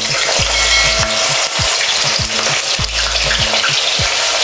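Potato chips deep-frying in a pan of hot oil: loud, steady sizzling with spitting and spattering, because the raw potato strips are still wet.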